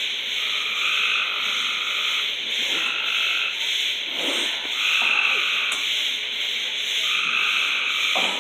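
Dense night chorus of frogs calling, swelling and easing about every two seconds.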